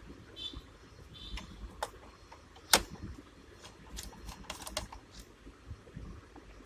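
Scattered small plastic clicks and taps as a fingerprint scanner's plastic casing is worked loose and opened by hand. There is one sharper knock nearly three seconds in and a quick run of clicks a little after the middle.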